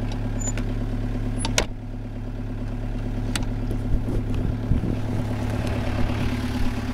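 Mitsubishi Delica L300's turbo diesel engine idling steadily, with a sharp metallic click from a middle-row seat's hinge and release-lever mechanism about a second and a half in, and a few lighter knocks after it.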